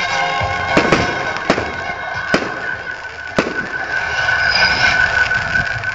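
Small fireworks going off, with four sharp bangs spaced about a second apart in the first three and a half seconds. Steady music plays underneath.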